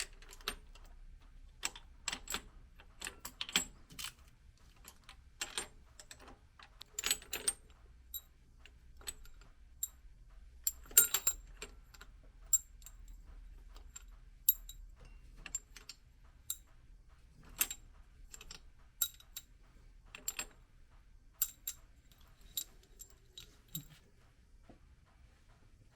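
Metal hand tools clinking against engine parts: scattered light metallic clicks, roughly one a second, some with a brief high ring.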